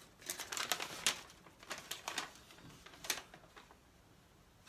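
A sheet of paper being unfolded and handled: a scatter of light crackles and ticks over the first three seconds or so, then it goes quiet.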